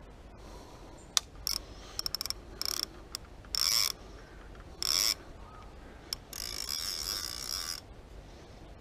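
Centrepin reel's ratchet check clicking in short bursts as the spool turns while a hooked trout is played. Near the end comes one longer run of clicking lasting about a second and a half.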